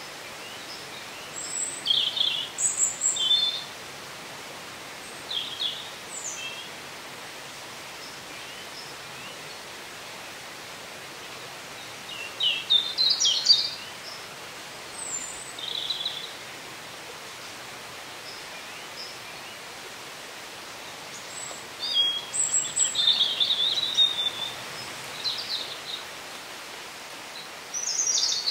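Woodland songbirds singing in several short, high phrases a few seconds apart, with pauses between, over a steady background hiss.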